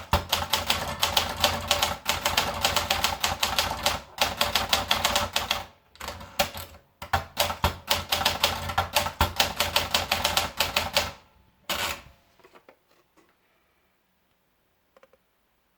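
Olympia Splendid 66 manual portable typewriter being typed on: rapid runs of key strikes with brief pauses. The typing stops about twelve seconds in.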